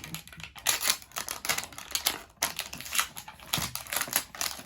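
Plastic toy packaging crackling and rustling in quick, irregular clicks as it is pulled and torn off an L.O.L. Surprise toy.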